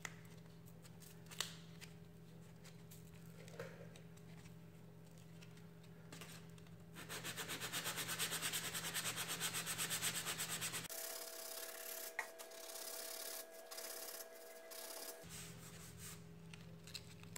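Hand block-sanding body filler with 180-grit sandpaper wrapped around a cut-down paint stick, smoothing the filled gouge after the coarse 80-grit cut. Quick back-and-forth scratchy strokes are loudest for about four seconds past the middle, with quieter rubbing and a few light taps around them.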